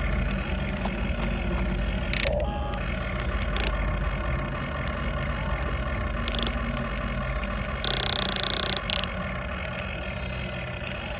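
Huina 1550 radio-controlled excavator's electric motors whirring steadily as the boom and bucket move, with a few short clicks and a brief burst of noise about eight seconds in.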